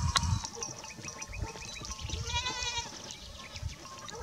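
A goat gives a wavering bleat a little after two seconds in, with shorter, fainter bleats before it, over low thumping rumble.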